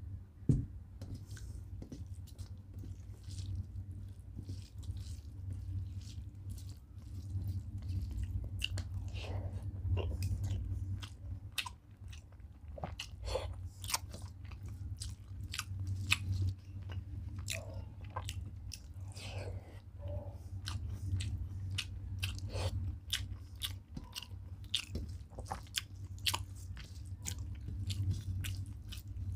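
Chewing and wet mouth sounds of a person eating rice with dal and curry by hand, with many small irregular clicks and squelches, over a steady low hum. A sharp knock comes about half a second in.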